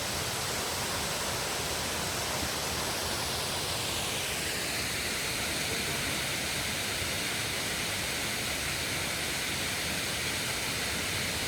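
Steady rush of a large waterfall, Thornton Force, pouring into its plunge pool; its hiss turns brighter about four seconds in.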